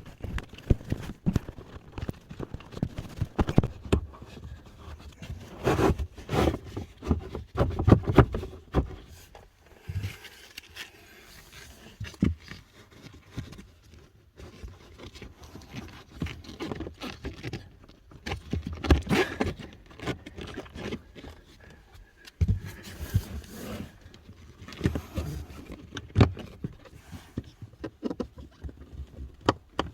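Hands handling plastic parts during a cabin air filter change: irregular clicks, knocks and scraping, busiest in the first third and again around the middle.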